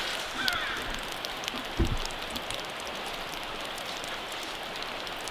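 Steady rush of running water, with a single bird call about half a second in and a low thump about two seconds in.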